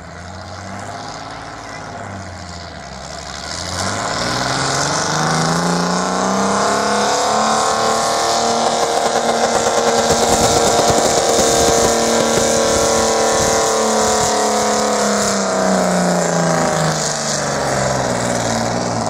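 Green John Deere tractor's engine pulling a weighted sled under full load: it revs up steeply about four seconds in, holds high and steady through the pull, then winds down near the end as the pull stops.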